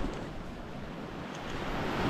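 Sea surf washing on the shore, with wind buffeting the microphone. The wash eases, then swells again near the end.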